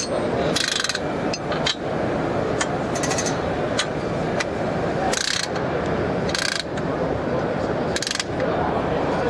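A JackTech spring and strut compressor's mechanism working: a steady mechanical noise, broken by about five short bursts of ratcheting and clicking.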